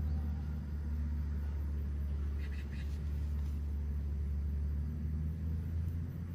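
A steady low rumble of outdoor background noise, with a brief faint high sound about two and a half seconds in.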